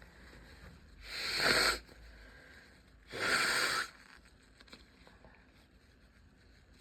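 A person sneezing twice in a sneezing fit, about two seconds apart: the first builds up and then breaks off, the second comes suddenly and is breathy and drawn out.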